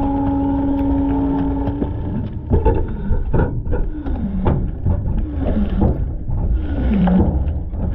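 Front-load garbage truck's hydraulic system and hopper at work. A steady whine over the engine's rumble stops about two seconds in. Then come a string of falling-pitch groans and creaks, about one a second, with metallic knocks and clatter.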